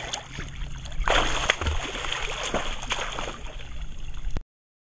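Pool water splashing and sloshing close to the microphone as swimmers move through it, with small slaps and drips. It grows louder about a second in and cuts off abruptly near the end.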